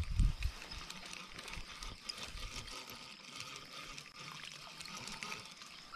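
Quiet pond-side ambience: a faint, steady high-pitched hum with scattered small ticks and trickling sounds. A few low thumps from handling the body-worn camera come right at the start.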